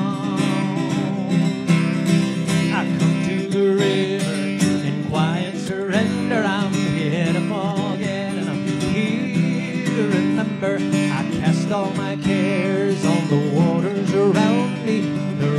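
Acoustic guitar strummed and picked through an instrumental break in a country-folk song. A wavering melody line rises above the guitar from about five seconds in.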